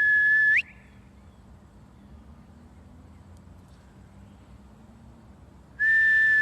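A high whistle, held at a steady pitch for under a second and then flicking sharply upward, heard twice about six seconds apart, with faint background hiss between.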